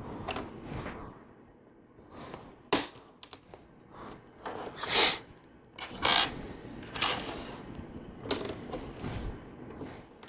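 LEGO plastic bricks and plates being handled and pressed together: irregular clicks and light rattling of parts, with a few sharper snaps.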